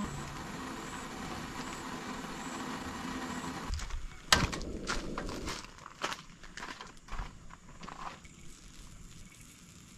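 A few sharp clicks and knocks of cookware being handled on a tabletop stove, the loudest a little after four seconds in, after several seconds of steady low background noise.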